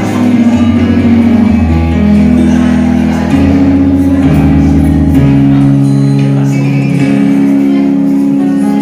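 Instrumental intro of a karaoke backing track: held chords over a bass line that steps to a new note every second or so.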